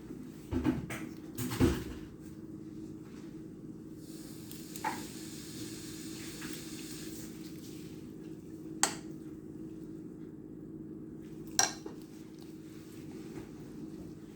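A few separate clinks and knocks of dishes and utensils being handled, over a steady low hum, with a soft hiss for a few seconds in the middle.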